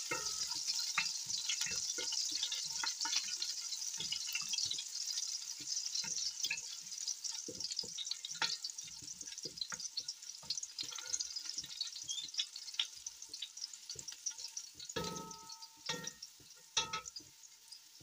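Minced garlic sizzling in hot oil in a pot while a wooden spatula stirs it, with many small clicks and scrapes of the spatula against the pot. The sizzle slowly fades, and near the end a couple of sharper knocks ring briefly.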